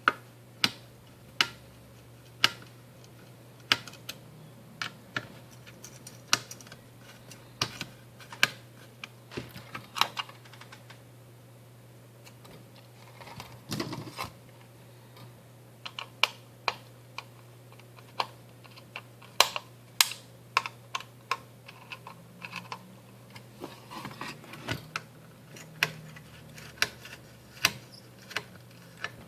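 Irregular sharp clicks and taps of hands and a small screwdriver on the plastic and metal parts of a laptop being taken apart, coming in uneven clusters with short pauses. A low steady hum runs underneath.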